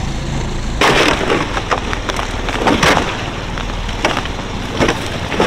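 Boat hull crunching and cracking through thin river ice, with sharp cracks about a second in, near three seconds and near the end, over the steady low hum of the boat's motor.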